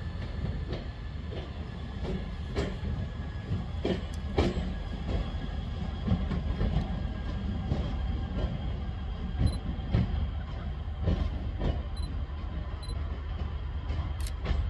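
VT2E diesel railcar set moving slowly over station tracks and points: a steady low diesel engine rumble with irregular clacks from the wheels crossing rail joints and switches.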